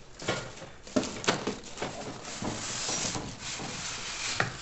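Cardboard carton and plastic packaging being handled as a printer is worked out of its box by hand: several light knocks in the first two seconds, then a stretch of rustling and scraping, and a sharp knock near the end.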